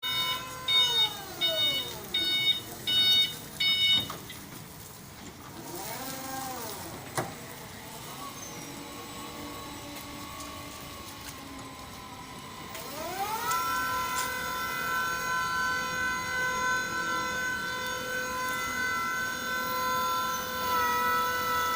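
Heavy container-handling machine at work: its warning alarm beeps five times in the first few seconds, then its engine and hydraulics run with whines that fall in pitch. About two-thirds of the way in, the machine revs up into a rising whine that then holds steady and louder, as it does under lifting load.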